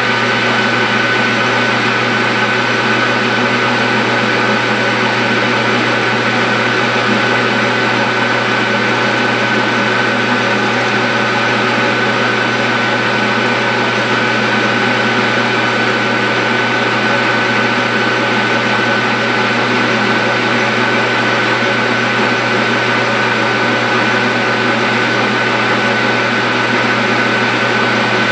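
Metal lathe running steadily, its spindle turning a 12L14 steel bar while an insert cutting tool faces off the bar's end. The sound is an even machine whine with one clear high tone held steady.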